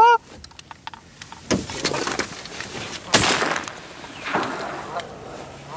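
Three shotgun shots, about one and a half, three and four and a half seconds in, each with a trailing echo; the middle one is the loudest. A short pitched call sounds right at the start.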